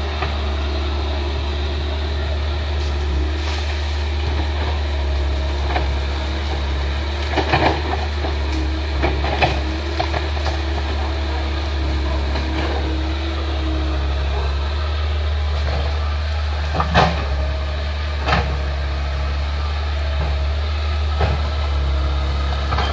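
Crawler excavator's diesel engine running steadily with a deep hum as it clears brush and trees. Several sharp cracks and knocks break through now and then, the loudest about two-thirds of the way in.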